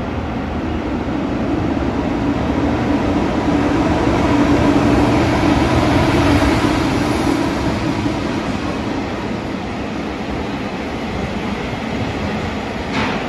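Freight train hauled by EF210 electric locomotives running through an underground station, a continuous rumble with a steady hum that swells to its loudest about five seconds in and then eases. A sharp knock near the end.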